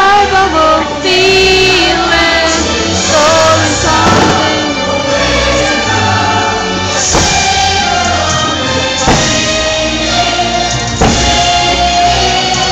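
Fireworks-show soundtrack: a choir singing over music. Four deep thumps come through it, about two seconds apart, from roughly a third of the way in.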